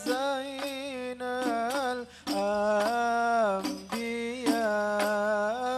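Male singing of a sholawat, an Arabic devotional song, on long-held, ornamented notes through a microphone. Hand-drum strikes run under the voice, and there is a short break about two seconds in.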